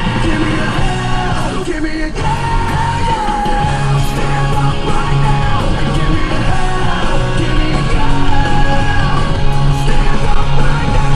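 Rock music with sung and shouted vocals, with a brief break about two seconds in.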